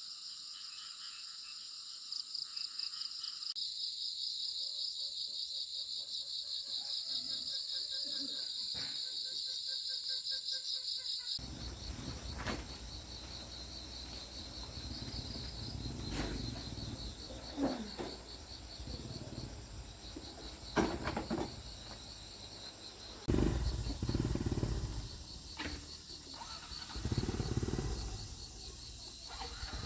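Insects chirping in a steady, high, pulsing drone. From about a third of the way in, a low rumble and scattered knocks sound underneath.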